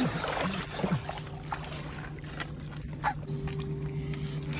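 Seawater splashing and dripping for about the first second as a diver hauls himself out of the sea onto a rocky ledge. A steady low hum runs underneath.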